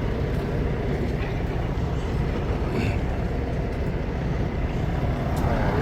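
Diesel truck engine idling, a steady low rumble.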